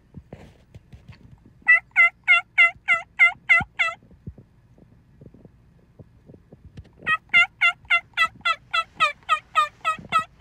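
Turkey yelping: two long runs of loud, evenly spaced yelps at about four a second, the second run longer.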